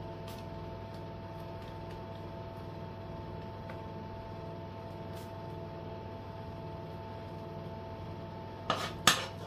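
Steady kitchen hum with a few fixed tones. Near the end come two sharp knocks of a metal spoon tapped against a frying pan, the second one louder.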